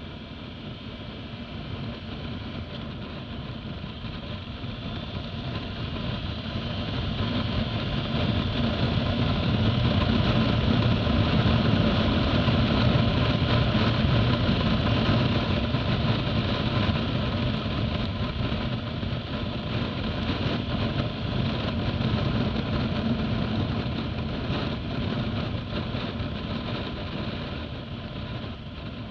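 Motorcycle on the move: engine and wind noise grow louder over the first ten seconds as it accelerates to about 90 km/h, then ease a little as it slows near the end.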